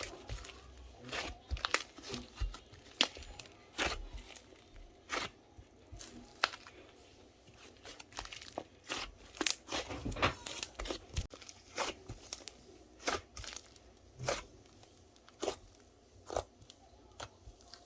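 Slime clay being squeezed and pressed by hand, giving irregular crackling, crinkling pops about once or twice a second.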